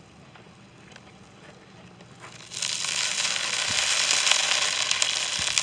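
Beef broth poured into a hot cast-iron pot with a seared beef roast, breaking into a loud, steady sizzle with crackles about two and a half seconds in as the liquid hits the hot iron.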